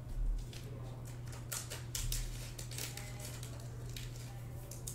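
2020 Topps Tier One baseball cards being handled and slid across one another, giving scattered soft ticks and scrapes over a steady low hum.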